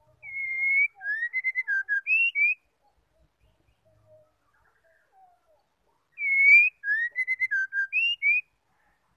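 Female white-rumped shama singing the same phrase twice, about six seconds apart. Each phrase is one long clear whistle followed by a quick run of short whistled notes.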